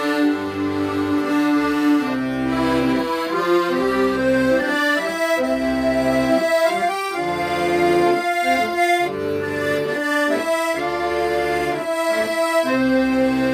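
Accordion playing a song melody in held reedy notes, with bass notes and chords underneath.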